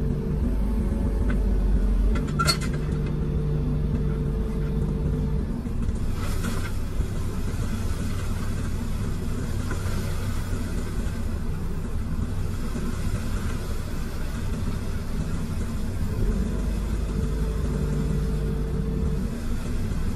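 Komatsu PC210 excavator's diesel engine running steadily, heard from inside the cab, its note shifting a few times as the hydraulics are worked. A sharp click about two and a half seconds in.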